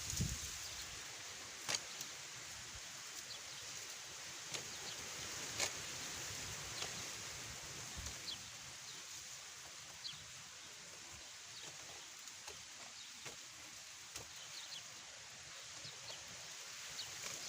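Scattered light clicks and taps from hands working on a box trap cage, cutting and handling it, over a steady outdoor hiss with a few faint, brief high chirps.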